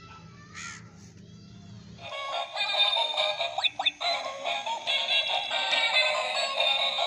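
Battery-powered toy hen playing a tinny electronic jingle through its small built-in speaker. The jingle starts about two seconds in, with a couple of quick rising whistles partway through.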